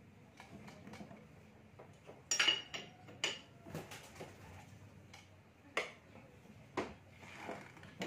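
Steel wrenches clinking against the scooter's CVT pulley nut and surrounding metal parts as the nut is worked loose with two spanners: a scattering of separate sharp metallic clinks, the loudest a little over two seconds in with a short ring.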